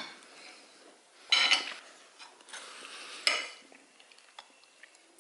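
Knife and fork cutting chunks of grilled steak on a glass plate, the cutlery scraping and clinking against the plate, with two louder strokes about a second and a half and about three seconds in.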